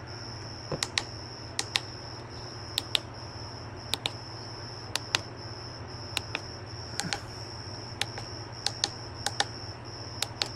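Switches on an Auxbeam 8-gang switch panel being pressed one after another to test the lights and accessories. The clicks come mostly in close pairs, about one pair a second, over a steady high-pitched whine and a low hum.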